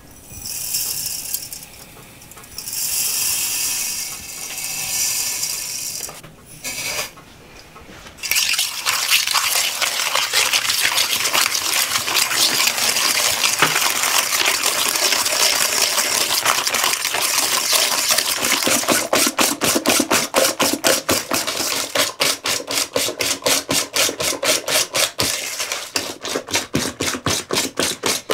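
Sugar poured onto cracked eggs in a few short hissing pours. Then the eggs and sugar are beaten by hand in an enamel bowl: a dense scratching and clinking that settles, past the middle, into an even beat of about four strokes a second.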